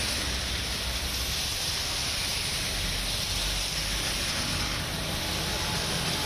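Steady wash of traffic driving through a flooded road in rain: tyres hissing and spraying through standing water over a low rumble of engines.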